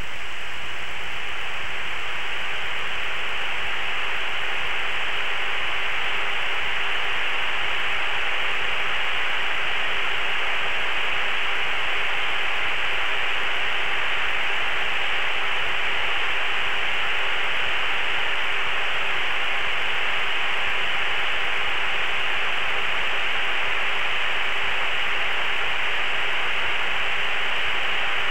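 Steady hiss of open-channel static on a T-45 jet's cockpit radio and intercom audio, cut off above and below like a voice radio, with a faint steady hum tone underneath.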